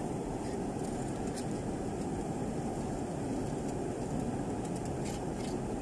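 Steady low rumbling background noise, with a few faint crinkles from aluminium foil being handled about a second in and near the end.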